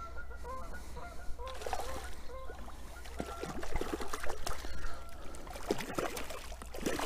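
A hooked trout splashing at the water's surface as it is reeled toward the landing net, a run of quick sharp splashes through the second half. A bird calls several short times in the first couple of seconds.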